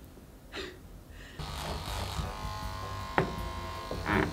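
Electric hair clippers switch on about a second and a half in and buzz steadily as they cut hair. A sharp click comes about three seconds in.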